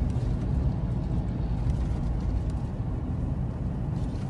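Steady road rumble of a moving car: tyre, engine and wind noise with no clear engine note.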